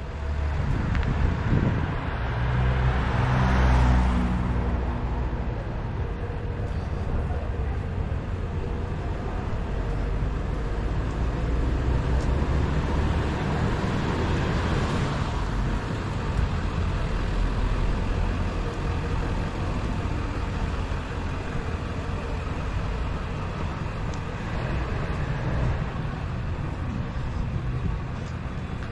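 Street traffic: a steady rumble of cars driving by, with two louder passing cars, one a few seconds in and another about halfway through.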